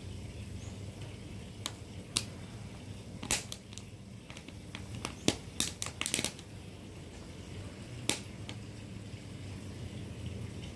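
Outdoor background with a steady low rumble, broken by irregular sharp clicks and taps, about a dozen in all, with a quick run of them around the middle.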